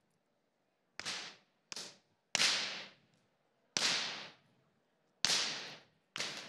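Six light whip cracks at uneven intervals, each a sharp pop that dies away in a short echo. The cracks are kept deliberately soft so a young filly gets used to the whip.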